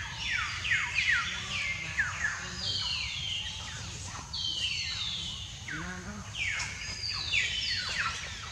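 Forest birds calling: a continuous run of high whistled notes, each held briefly and then sliding down in pitch, several overlapping and repeating once or twice a second.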